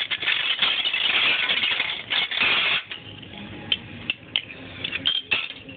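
Plastic Lego bricks being pulled apart and clattering on a tabletop: a busy run of clicks and rattles for about three seconds, then scattered single clicks.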